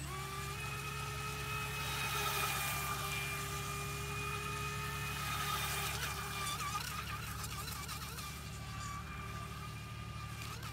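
Pro Boat Recoil 17 RC boat's brushless electric motor running at speed: a high-pitched whine held steady for about six seconds, then wavering up and down in pitch as the boat turns.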